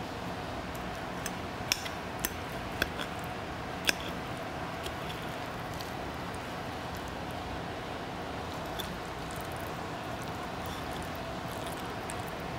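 Steady background room hum, with a handful of sharp, light clicks in the first four seconds and one faint one near nine seconds.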